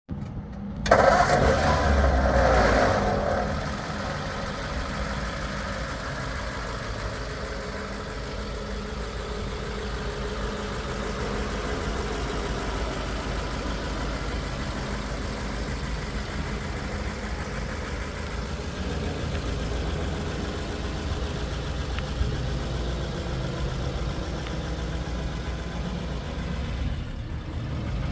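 1939 Ford half-ton pickup's engine starting about a second in with a short rev, then settling into a steady idle.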